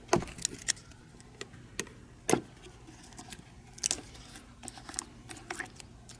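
Red plastic cap and tamper seal on a metal Motul 300V oil tin being picked at and torn open by hand: scattered sharp clicks and crackles, the loudest a little over two seconds in.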